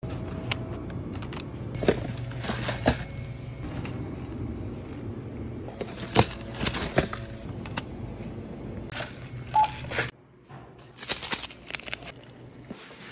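Plastic food packaging being handled on shop shelves, with scattered clicks and crinkles over a steady low hum. After a sudden drop to quiet about ten seconds in, a ramen cup's paper lid is peeled and seasoning sachets crinkle.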